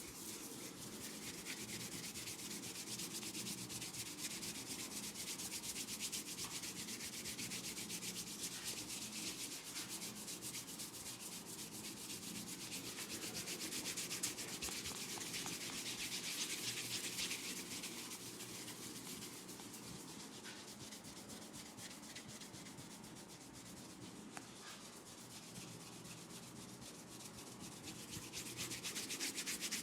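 Fingers rubbing and scratching through hair on the scalp in a head massage, a dense, steady rustling. It grows softer for a while past the middle, then louder again near the end.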